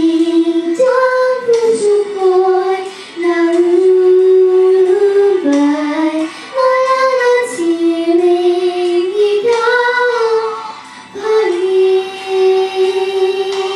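A young girl singing a Filipino song, holding long notes with a slight waver and stopping briefly for breath a few times.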